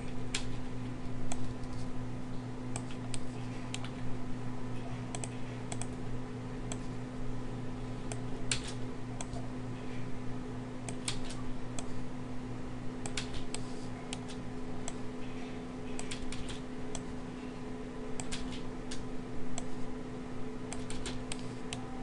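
Irregular clicks of a computer keyboard and mouse as objects are cloned and moved in 3D modelling software, over a steady low hum.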